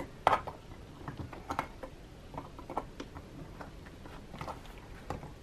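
Flathead screwdriver tip clicking and scraping against the metal clips of a Filofax planner's ring mechanism as they are pried up: a faint scatter of small, irregular clicks.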